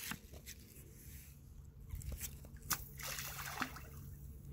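A thrown stone hitting lake water: a few short splashes about two to three seconds in, over faint trickling water.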